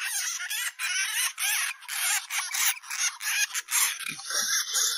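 Baby hamsters squeaking shrilly while being picked up and held in the hand, a rapid, unbroken series of high-pitched squeaks.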